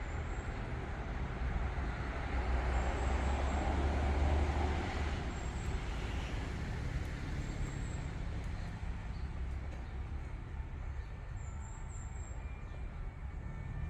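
Street traffic: a motor vehicle passing close by, its noise swelling a couple of seconds in and fading away, over a steady low rumble of city traffic.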